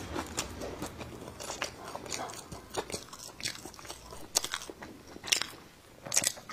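Close-miked chewing and crunching of crisp sour-spicy pickled ginger slices, with a few sharper crunches in the second half.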